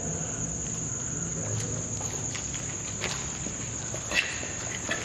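Crickets giving a steady, high, unbroken trill, with a few faint light taps and one sharper click about four seconds in.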